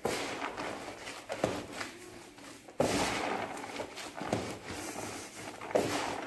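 Gloved hands kneading a large batch of spiced ground meat for sucuk in a bowl. The mix is pushed and turned over, with a louder stroke about every second and a half. It is still being worked toward a smooth, paste-like dough.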